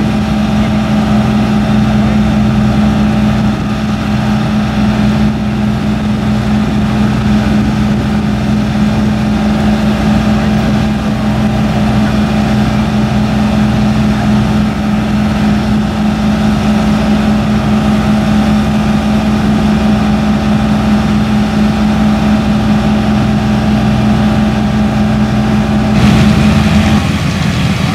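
Vintage fire engine's motor running steadily at a constant speed to drive its water pump, a strong even hum over a rushing hiss; near the end the hiss grows louder.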